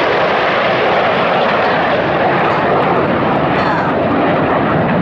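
Formation of nine BAE Hawk T1 jet trainers flying past overhead, a steady loud jet roar from their Adour turbofan engines.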